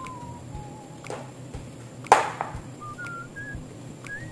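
A person whistling a slow tune, single held notes stepping up and down in pitch, over kitchen work sounds. A sharp knock about two seconds in, with a few softer clicks, comes from hands working in a large pot of rice.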